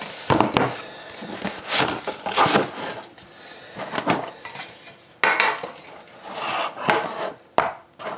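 A Panini Dominion card box handled on a tabletop: a string of knocks and scrapes as the box is slid out of its outer sleeve and set down, with the loudest knock and scrape about five seconds in.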